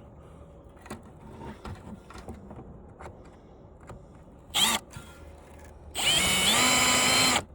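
Power screw gun (drill/driver) run twice while taking screws out of an old TV: a short whirr about four and a half seconds in, then a run of about a second and a half that spins up and holds steady. Faint clicks and handling of parts come before it.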